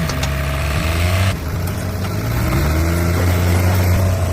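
A heavy truck's engine running with a steady low drone; its pitch rises a little in places. The higher hiss drops away abruptly a little over a second in.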